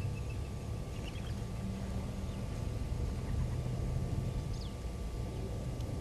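Waterhole ambience: a steady low rumble with faint, high bird calls over it, the end of a rapid repeated chirping at the start, a few small chirps about a second in, and a quick falling whistle about four and a half seconds in.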